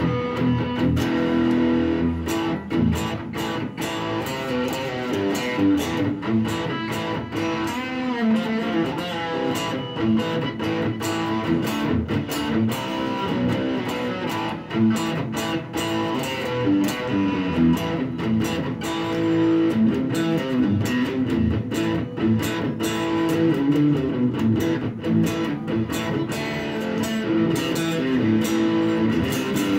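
Fender Stratocaster electric guitar being played, a steady run of picked notes and chords.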